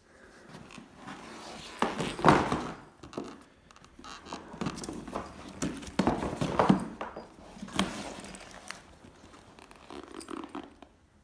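A FREITAG bag being handled and unpacked: irregular rustling and scuffing with a few knocks, loudest in clusters about two, six and eight seconds in.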